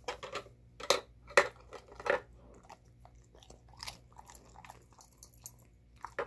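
Golden retriever working a plastic treat puzzle toy with her nose: four loud sharp clacks and crunches in the first two seconds, then softer scattered clicks, and one more sharp click near the end.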